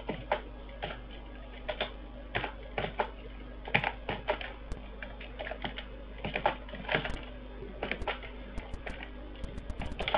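Typing on a computer keyboard: irregular keystroke clicks in short runs, a little faster in the last few seconds.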